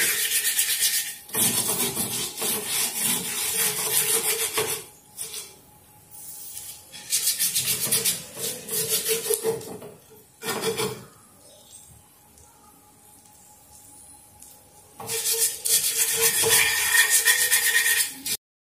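A half onion on a fork scrubbed back and forth through coarse salt on a cast iron dosa tawa: rapid gritty scraping strokes in several bursts, with two quieter pauses in between.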